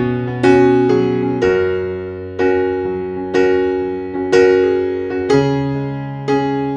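Background music: a piano-like keyboard playing a chord about once a second, each chord ringing and fading before the next.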